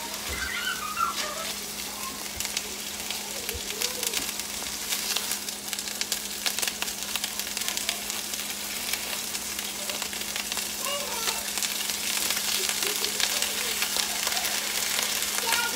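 Hamburger patties frying in oil in a skillet, sizzling steadily with a dense crackle of small pops.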